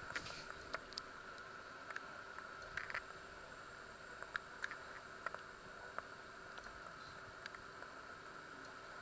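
A pot of liquid simmering: a faint steady hiss with small irregular pops of bursting bubbles, more of them in the first few seconds.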